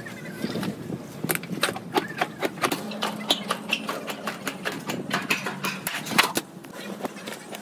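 Hand tin snips cutting thin steel sheet: sharp irregular metallic clicks, several a second, as the blades close and the sheet flexes and rattles. A low steady hum runs underneath.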